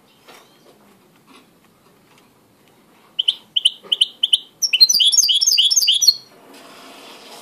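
White mixto (canary hybrid) singing: a few faint ticks, then from about three seconds in a string of quick, high repeated notes running into a fuller rolling phrase of about a second and a half that stops abruptly.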